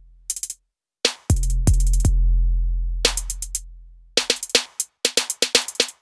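Electronic background music: a drum-machine beat with deep bass, broken by short silent gaps.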